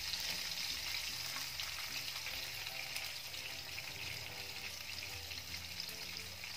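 Green chillies frying with tempering seeds and urad dal in hot oil in a pan: a steady sizzle.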